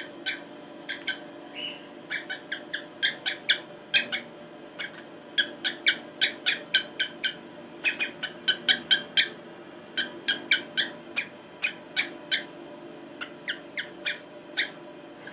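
Female cockatiel giving short, sharp chirps over and over, a few a second in irregular runs: the calling of a hen in breeding condition, soliciting a mate.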